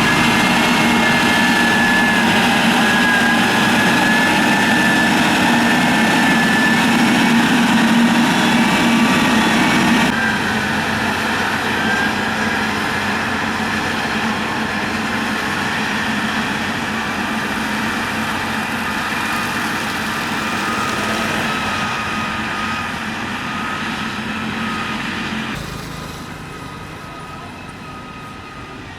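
Motor grader's diesel engine running steadily under load, with a steady high whine over the engine note. The sound shifts abruptly twice, about ten seconds in and near the end, where it becomes quieter.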